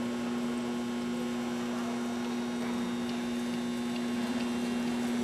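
Steady electrical mains hum, one constant low tone with a fainter higher tone above it, over an even background hiss.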